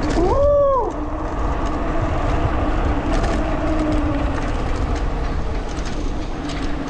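Wind buffeting the microphone over the tyre rumble of a Polygon mountain bike rolling downhill, with scattered light clicks. About half a second in, a short tone rises, holds and falls away.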